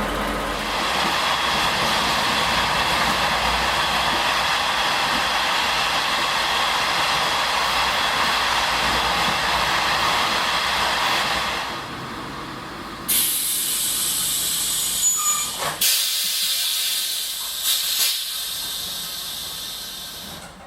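Compressed air hissing from a passenger train's air brakes: a long steady hiss for about ten seconds, then, after a short lull, a second, higher-pitched hiss with a few short puffs, dying away near the end.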